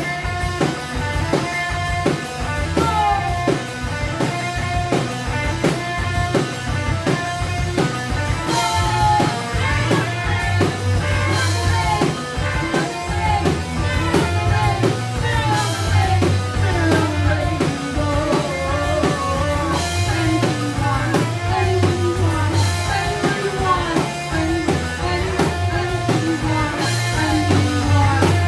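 Live rock band playing: a drum kit keeping a steady beat under electric guitar and bass.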